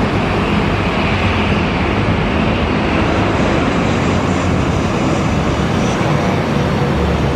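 Jet airliner's engines heard close by: a loud, steady wash of engine noise with no breaks.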